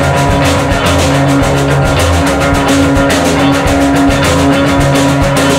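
Rock song with a steady drum beat, in an instrumental stretch between sung lines.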